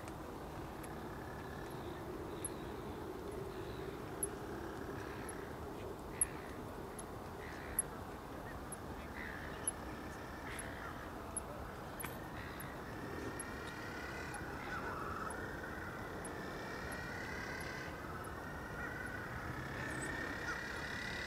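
Faint calls from a little penguin colony: short cries that rise and fall, becoming more frequent and layered in the second half. Behind them is a steady background hiss and faint high ticks about every half second.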